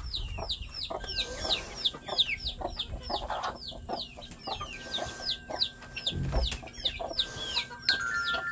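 A baby chick peeping over and over, about three short falling peeps a second. A few light knocks and a dull thump about six seconds in.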